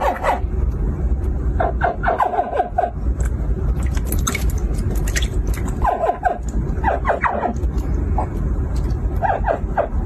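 Hatchling crocodiles giving short, pitched chirping calls in three quick series, about two seconds in, around six to seven seconds in, and near the end. A steady low rumble runs underneath.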